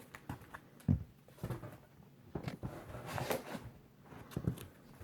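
Comic books in plastic bags being handled: crinkling of the plastic and light knocks as they are shuffled and set down, with a louder thump about a second in.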